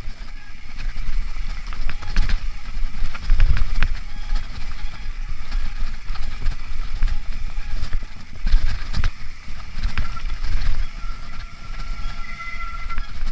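Mountain bike riding fast downhill on a dirt trail: tyres running over dirt and dry leaves, the bike rattling and knocking over bumps, and wind rumbling on the microphone. A faint high squeal comes in near the end.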